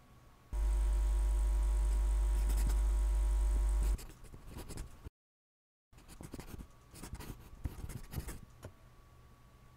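Pencil scratching on paper in short writing strokes. From about half a second in until about four seconds, a loud steady low drone with several held tones covers it. It then drops out to dead silence for under a second before the pencil strokes return.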